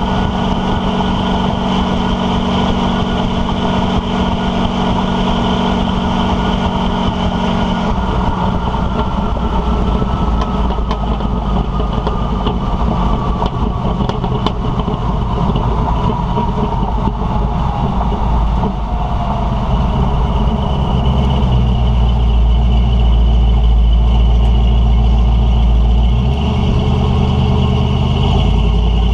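Exhaust of a stock Ford 460 big-block V8 with Hedman headers and dual 2-1/2" pipes through Thrush Welded mufflers, heard from under the moving truck: a steady engine drone with road noise. Through the middle a whine falls in pitch, and over the last third the exhaust turns to a deeper, louder rumble.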